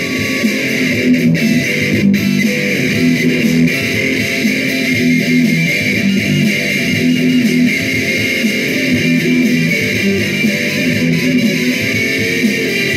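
Electric guitar played continuously, a steady stream of notes in a metal style.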